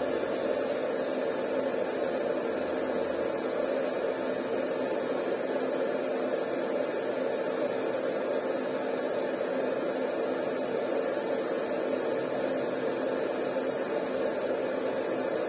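30 W Raycus fiber laser marking machine running as it engraves anodised aluminium: a steady, even hum and hiss that holds without change.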